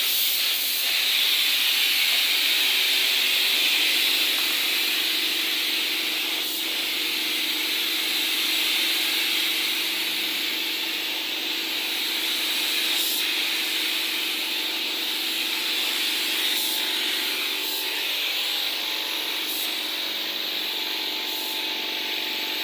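Compressed-air paint spray gun hissing steadily as it sprays a car body panel, with a low steady hum beneath the hiss.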